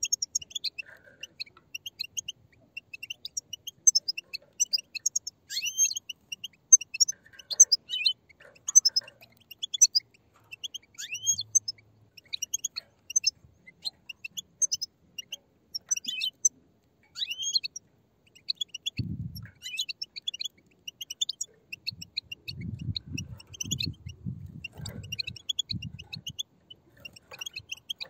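A group of European goldfinch chicks chirping and chattering, with many rapid, high, short calls overlapping and some quick upward-sliding notes. This is their begging chatter. A few low rumbles and thuds come through about two-thirds of the way in and again near the end.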